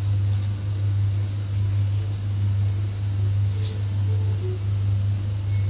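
A steady low hum that holds one pitch throughout.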